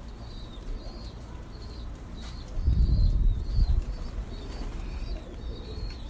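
Kept birds: short high chirps from small birds repeat throughout, with pigeons cooing. A loud low rumble, such as wings flapping or a bump at the microphone, lasts about a second, starting about two and a half seconds in.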